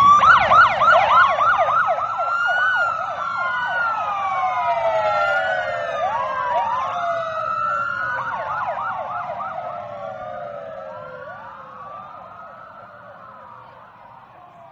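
Several emergency-vehicle sirens sounding together, starting suddenly with a fast yelp of about four to five sweeps a second, then slower overlapping wails rising and falling. The sirens fade away gradually, over a faint low rumble.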